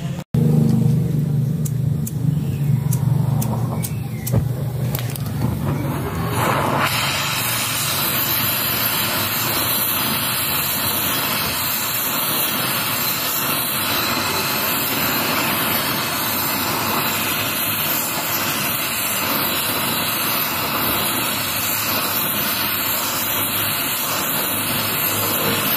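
Gas torch flame burning with a steady, even hiss from about seven seconds in, heating the rusted impeller hub of a water pump to loosen it. Before that there is a low hum with a few sharp clicks.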